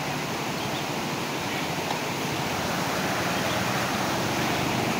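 Steady rush of floodwater pouring over a low concrete river crossing, the river still swollen after a flood.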